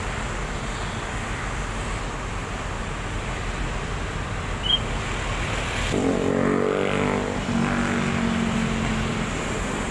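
Vehicle engine running with a steady low rumble. About six seconds in a louder engine note comes in and holds for about three seconds before fading. A brief high chirp comes about halfway through.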